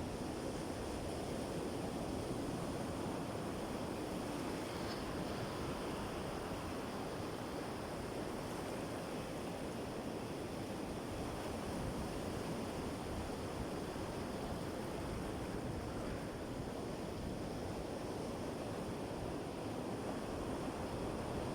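Sea waves washing steadily onto a shore: a continuous rushing of surf without pauses.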